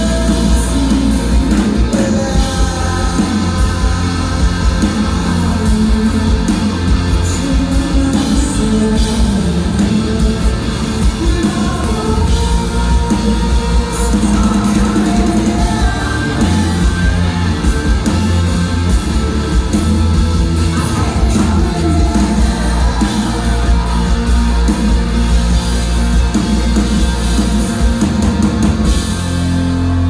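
Live rock band playing loud, with electric guitars, drums and singing. The drums stop near the end.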